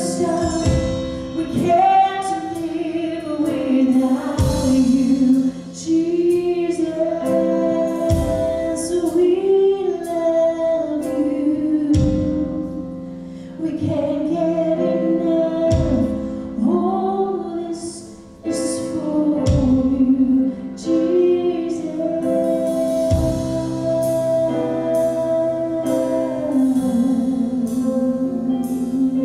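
Live contemporary worship song: a woman singing lead over acoustic guitar and keyboard accompaniment.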